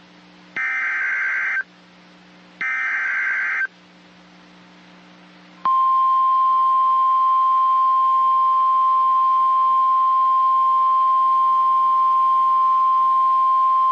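NOAA Weather Radio emergency alert: the last two bursts of the SAME digital header, short warbling data tones about a second apart, then after a pause the steady 1050 Hz warning alarm tone starts and holds. It signals that a new warning, here a severe thunderstorm warning, is about to be broadcast.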